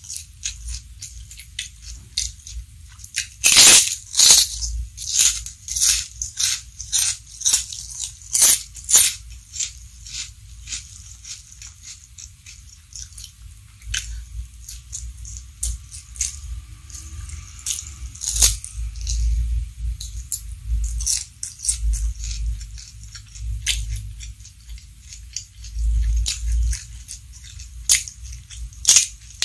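Close-miked eating sounds: loud, crisp crunches of a large puffed cracker being bitten and chewed, loudest about four seconds in. A quieter stretch of soft chewing of rice follows. Crunchy bites of raw vegetable come again toward the end.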